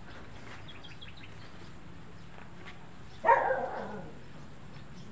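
A single loud animal call a little past halfway, lasting under a second and falling in pitch, with faint bird chirps earlier.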